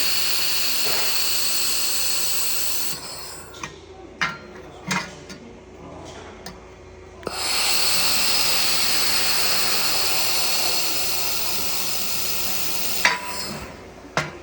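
Welding in progress: a steady, loud hiss that runs for about three seconds, stops, and starts again for about six seconds. Sharp clicks and knocks fall in the pause between the two runs and again near the end.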